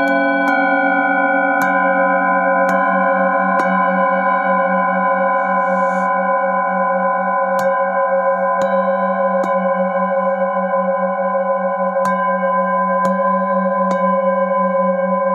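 A hand-held metal singing bowl is tapped lightly with a mallet in groups of three strikes about a second apart. Between the taps it rings on in a steady tone that wavers slowly.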